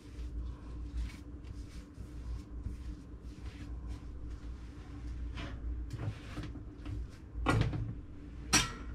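Hands rolling and pressing bread dough on a floured countertop, with soft rubbing and light pats. Near the end come two louder knocks about a second apart, as a baking tray is fetched.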